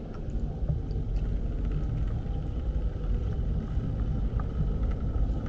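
Boat engine running with a steady low rumble and a faint steady whine above it.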